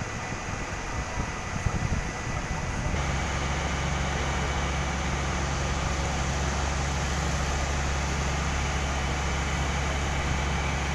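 Steady drone of heavy industrial machinery with a strong low hum. For the first few seconds, wind buffets the microphone over a rumble; the drone then sets in abruptly about three seconds in and holds steady.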